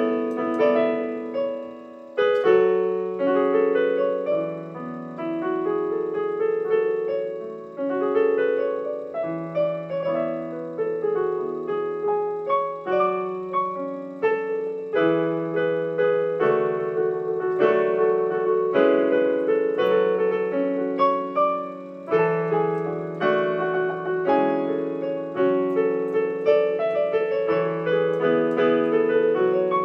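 Solo digital piano played by hand: held chords over a sustained bass line, with a short break about two seconds in and another around twenty-two seconds.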